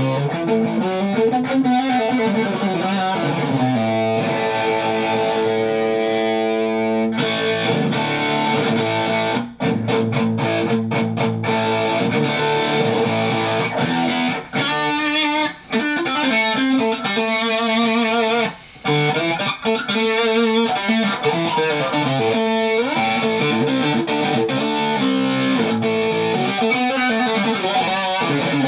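Electric guitar played through a 1990s Tech 21 NYC XXL distortion/overdrive pedal, with bent notes, vibrato and a few short breaks between phrases. The pedal is powered up and passing signal, its controls, jacks and battery terminals freshly sprayed and cleaned.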